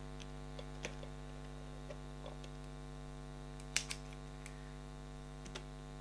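Steady electrical mains hum, with a few light clicks of small plastic RC car suspension parts being handled; the sharpest pair comes a little under four seconds in.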